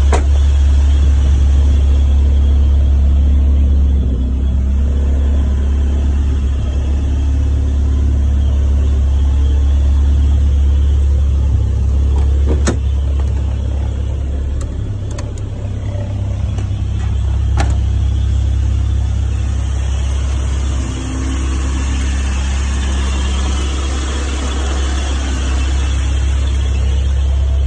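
1991 Isuzu pickup's engine idling steadily with the air conditioning running, a constant low hum. Two short clicks come through around the middle.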